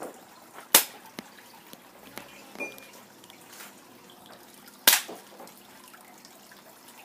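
Two sharp shots from a small gun, about four seconds apart.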